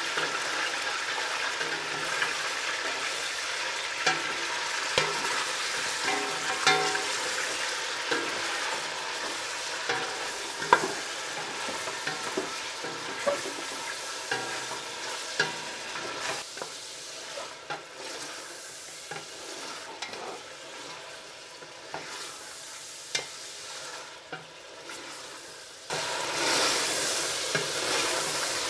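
Beef cubes and fried onions sizzling in hot oil in a stainless steel pot as the meat browns, with a wooden spatula stirring and knocking against the pot. The sizzle dies down for a while past the middle and picks up again near the end.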